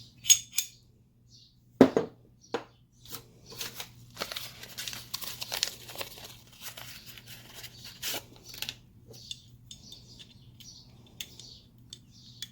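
Pistol slide parts being handled and fitted together: a few sharp metallic clicks and knocks, the loudest about two seconds in, then a stretch of light scraping and rustling with scattered clicks.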